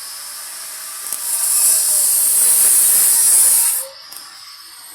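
Welding arc giving off a steady high hiss that grows much louder about a second in and cuts off sharply near four seconds, with a fainter hiss after.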